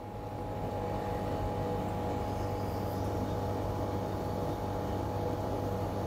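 Siemens condenser tumble dryer running: a steady hum from the drum motor and fan with a faint constant whine, swelling over the first second and then holding level.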